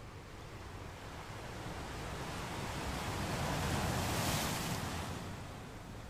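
Sea waves: one wave swells and washes in, loudest about four seconds in, then fades away, over a steady low rumble.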